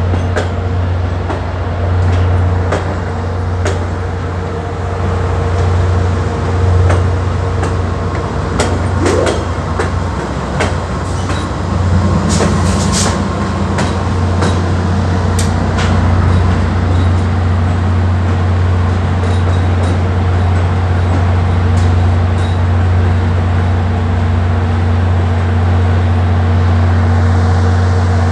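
VIA Rail passenger train rolling slowly out of the station, its wheels clicking over the rails, with the rear P42DC diesel locomotive passing about halfway through. A steady, loud diesel locomotive drone runs under the clicks.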